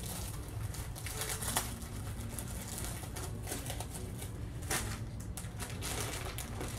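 Small plastic pieces and their packaging being handled: irregular light clicks and rustling, over a low steady hum.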